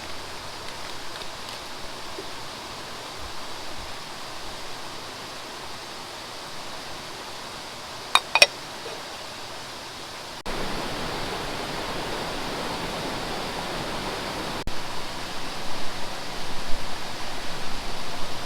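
Steady rushing of flowing water, with two short ringing clicks about eight seconds in. The rush steps up louder about ten seconds in and turns more uneven near the end.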